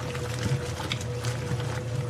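Washing machine running: a steady low motor hum with a constant whining tone, and water sloshing irregularly in the drum.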